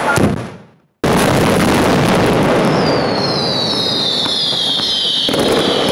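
Mascletà firecracker barrage: a dense, continuous crackle of bangs that fades out about half a second in and cuts back in abruptly at about one second. In the second half a high whistle slowly falls in pitch over it.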